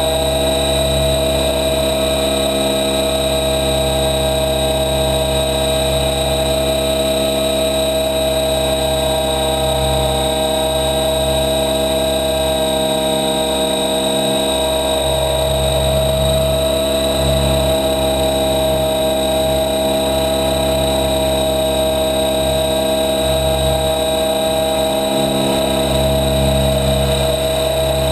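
Helicopter in flight: a steady, loud whine of many tones over a low rumble that swells and eases slightly, with no pauses.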